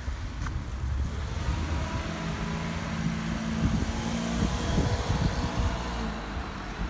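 A car driving past on the road, its engine hum and tyre noise growing louder to a peak about four to five seconds in, then fading.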